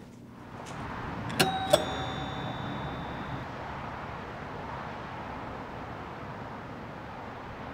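A doorbell chime ringing a two-note ding-dong about a second and a half in, its tones ringing on for a moment and fading. Under it, the steady hum of city traffic.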